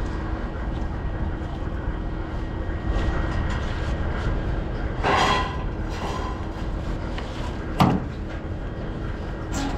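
Vehicle running, heard from inside the cab: a steady low rumble with a faint steady hum. There is a brief rustling swish about five seconds in and a single sharp knock at about eight seconds.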